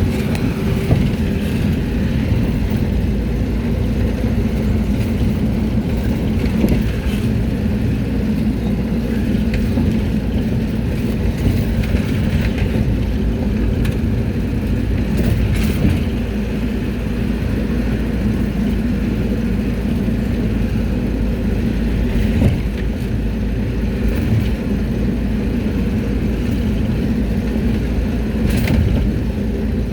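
Mercedes-Benz T1 minibus under way, its engine and road noise drumming steadily inside the passenger cabin, with a few brief rattles and knocks from the body.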